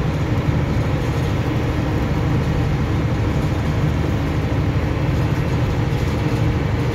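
Mercedes-Benz Unimog truck driving along, its engine and drivetrain making a steady, unchanging drone heard from inside the cab.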